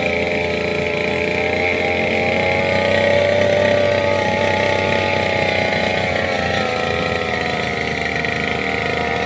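An engine running steadily, its pitch rising a little about three seconds in and easing back down later.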